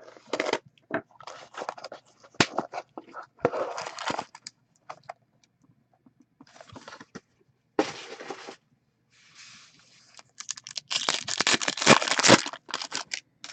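Wrapping on a trading-card box and its packs being torn open and crinkled in a run of irregular rustles and sharp crackles, the loudest stretch of tearing near the end.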